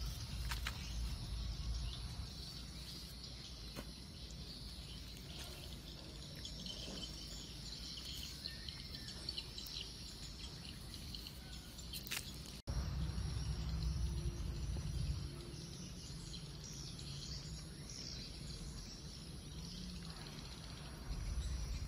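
Outdoor ambience of insects chirping steadily, with a repeating high pulse over a low rumble. About halfway through the background jumps suddenly, with the rumble briefly louder.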